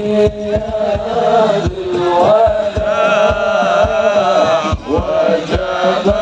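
Voices chanting a devotional Maulid song, with rebana frame drums beating under it.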